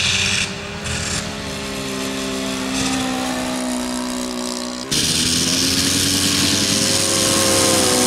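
Model aeroplane engine running in flight: a steady drone whose pitch drifts slowly as the plane passes. About five seconds in the sound changes abruptly and gets louder, then the pitch rises a little.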